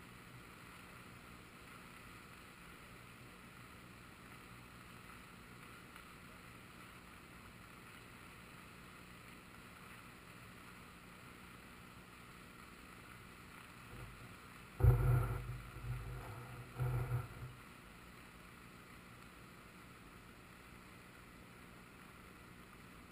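Flooded river water rushing steadily past a camera dangled just above the surface. About fifteen seconds in come a few loud, deep thumps and rumbles over two to three seconds.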